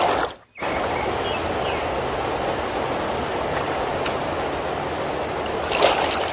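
Steady rushing of a shallow creek flowing over rocks. The sound drops out completely for a moment about half a second in, and a short sharp noise stands out near the end.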